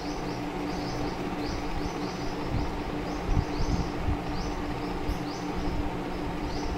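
A small bird chirping in the background: short high chirps in quick runs of about three a second, over a steady low hum.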